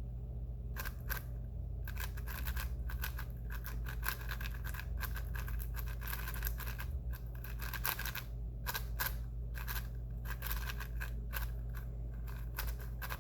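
A Valk 5 M magnetic 5x5 speed cube being turned by hand: fast runs of plastic clicks and scrapes as the layers turn, in flurries with brief pauses, starting about a second in.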